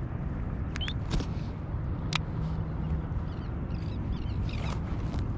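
Steady low rumble of wind and water around a kayak, with a few sharp clicks from a baitcasting fishing reel about one and two seconds in. Birds call briefly a few times in the second half.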